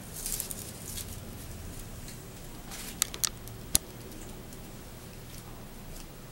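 Hands pressing and handling a mandala of stiff paper strips: light paper rustling, with three sharp clicks about three seconds in.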